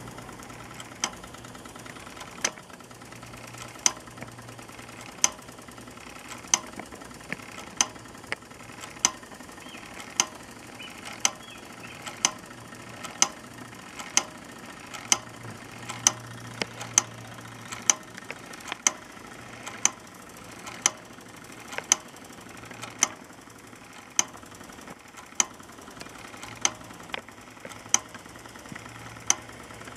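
Tinplate Doll toy blacksmith driven by belt from a Doll 304/2 toy steam engine: the figure's hammer strikes the anvil with a sharp clink about once a second, over the steady running of the little steam engine.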